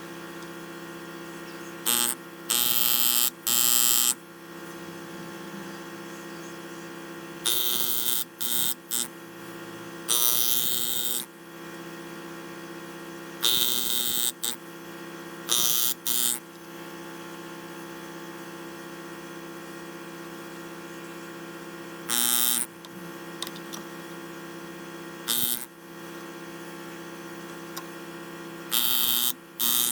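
Steady electric hum with about a dozen short bursts of harsh hissing noise from a workshop tool at work, each lasting from a fraction of a second to about a second.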